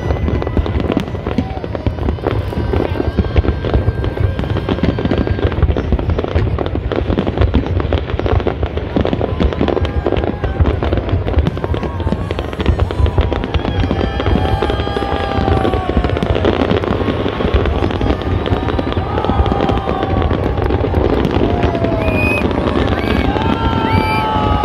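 Fireworks display going off continuously: a dense, unbroken run of rapid pops and crackles, with rising and falling tones gliding over it in the second half.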